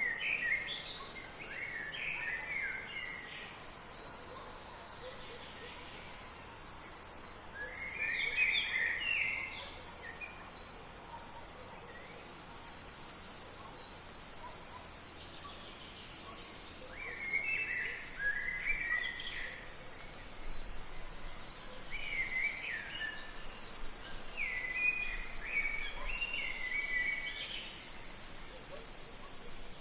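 Rainforest ambience: an insect's high, evenly pulsing call runs steadily while birds break in with bursts of chirping calls every few seconds.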